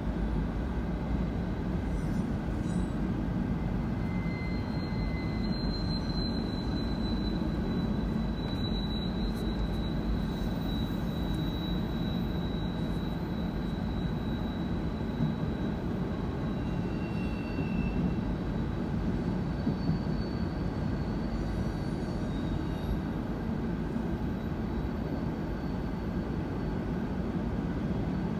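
Norfolk Southern freight train's cars rolling past a grade crossing, heard from inside a car: a steady, unbroken rumble of wheels on rail, with faint thin high whines coming and going.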